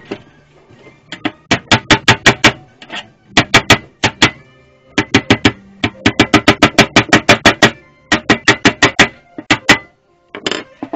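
A small hammer strikes the rusty sheet-steel bottom of an old Craftsman metal toolbox in quick runs of sharp metallic blows, about five or six a second. The runs come in several bursts with short pauses between them.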